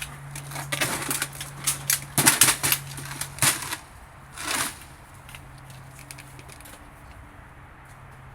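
Clicks and rattles of an M16 rifle and its 5-round magazine being handled while it is made a condition 3 weapon (magazine inserted, no round chambered). They come over the first few seconds and then stop, leaving a low steady hum.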